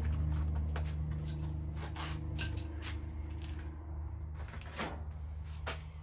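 Small metal parts clinking and rattling as they are handled, in a series of short clicks, the sharpest about two seconds in, over a steady low hum.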